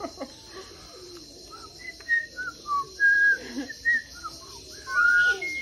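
A bird giving a series of short, clear whistles, single notes with some rising or falling, several of them in a row.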